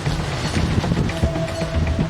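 Background music with a steady rhythmic pulse and held tones.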